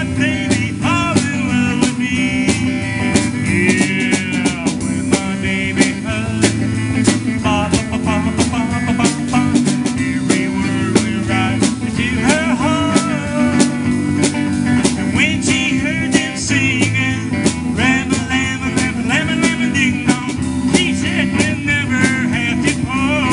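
Live rock-and-roll band music: electric guitar and drum kit playing a steady beat over a full low backing, in a stretch without words, with bending guitar lead lines above.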